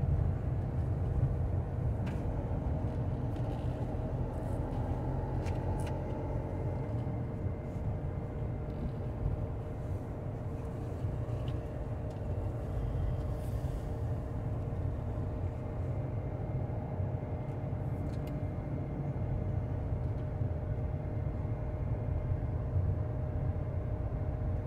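A car driving slowly, heard from inside: a steady low engine and road rumble with a faint constant hum above it.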